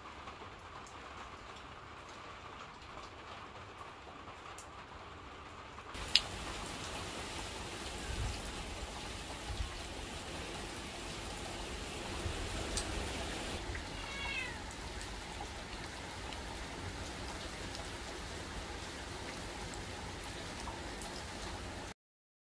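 Steady rain. For the first few seconds it is quiet and dull, as if heard from indoors through a window. About six seconds in, after a sharp tick, it turns louder and brighter: rain hissing and pattering on a wet stone path and puddles. A few short high chirps come near the middle.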